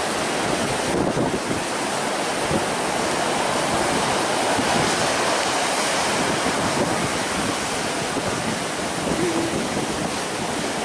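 Hurricane-driven surf breaking on the beach, with strong wind buffeting the microphone; a steady, unbroken wash of noise.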